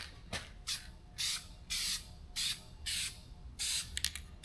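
Aerosol spray can of Toyota white paint hissing in short bursts, about seven quick sprays with brief pauses between.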